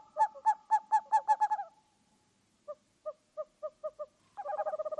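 Owl calling: a quick run of short hoots that speeds up and trails off, then a softer, lower series of spaced notes, and near the end a fast, continuous run of notes begins.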